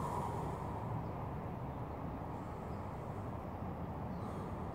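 Steady outdoor background noise with no distinct events.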